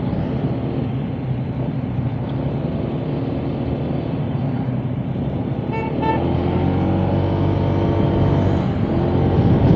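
Honda ADV 160 scooter's single-cylinder engine running on the move, under steady wind and road noise. About six seconds in, a horn gives two short toots, and the engine note then rises as the scooter speeds up.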